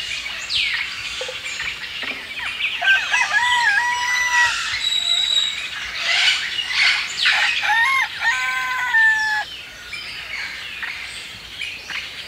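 A rooster crowing twice, about three and seven seconds in, over the chirping of small birds.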